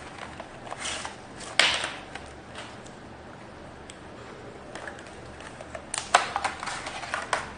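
Scattered clicks and short rustles of something small being handled, with a sharp click about one and a half seconds in and a quick run of clicks near the end.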